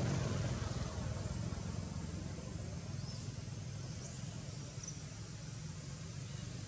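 Steady low rumble of outdoor background noise, with a few faint high chirps about three to four seconds in.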